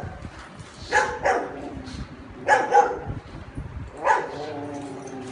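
Dogs play-fighting, giving three short bouts of barking about a second and a half apart.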